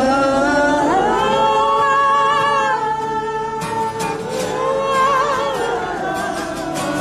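Male voice singing live over an acoustic guitar, holding two long notes with vibrato: the first rises about a second in and is held for a couple of seconds, the second comes a little past the middle.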